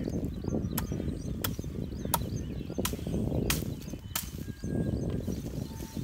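Hand axe chopping into a tree trunk: six sharp strikes, one about every 0.7 s, stopping a little past four seconds in.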